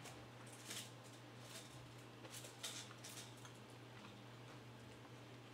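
Faint chewing and small wet mouth clicks of a person eating with the mouth closed, a few soft clicks spaced irregularly, over a low steady hum.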